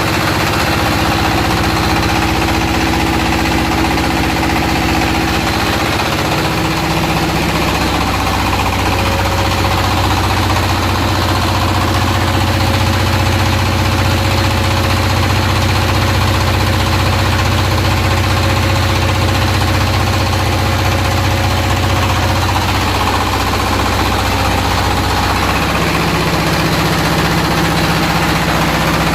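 Floating fish-feed pellet extruder running steadily, its drive and screw making a continuous mechanical hum.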